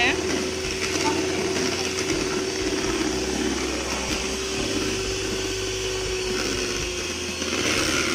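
Electric stand mixer running steadily, its beaters whirring through cake batter in the bowl with a constant motor hum.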